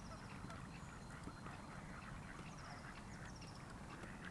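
Quiet duck-pond ambience between loud quacks: faint, distant duck calls over a low steady rumble, with a few faint high chirps.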